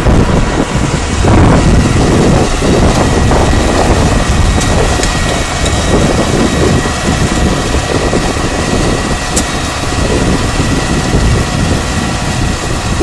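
Tractor engine running steadily as it pulls a tractor-mounted four-unit disk seeder across the field, with wind rumbling on the microphone.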